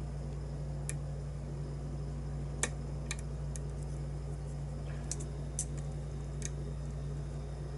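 Light, scattered metallic clicks and ticks of a lock pick working the pins of a pin-tumbler challenge lock, the sharpest about two and a half seconds in, over a steady low hum.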